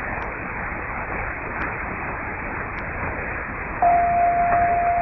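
Longwave AM reception of DR's 243 kHz Kalundborg transmitter, heard as a steady band-limited hiss of static. Near the end a single steady pure tone starts abruptly: the start of the station's interval signal before the opening.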